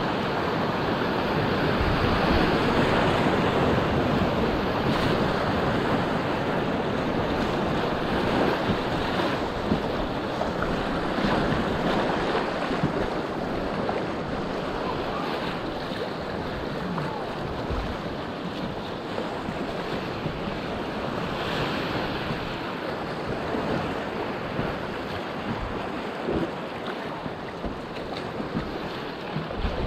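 Rushing river whitewater heard from a packraft riding a wave train on a river running at about 1600 cfs, with wind buffeting the microphone. It eases off slightly in the second half, and there are a few faint paddle splashes.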